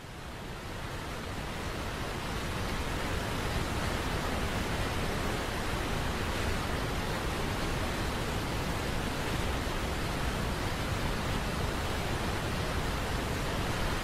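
Steady rush of falling water from a waterfall and its rapids, fading up over the first couple of seconds and then holding even.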